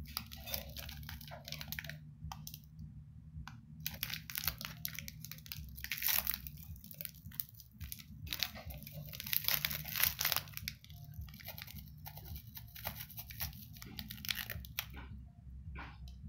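Wrapper of a Wafrets chocolate wafer bar crinkling and tearing in irregular crackly bursts as the bar is unwrapped, over a low steady hum.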